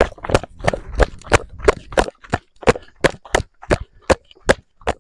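A steady run of about fifteen sharp knocks, roughly three a second, slowing a little near the end.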